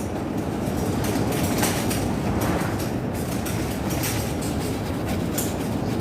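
Storm-force wind roaring steadily around the barn and across the phone's microphone, with frequent short clicks and knocks from things rattling in the gusts.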